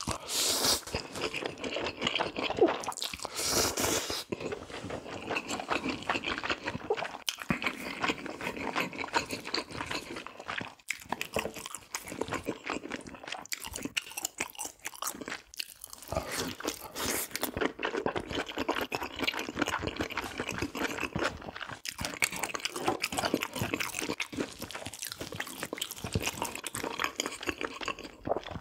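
A person eating close to the microphone: repeated bites and chewing with crunchy, clicking mouth sounds and a few brief pauses.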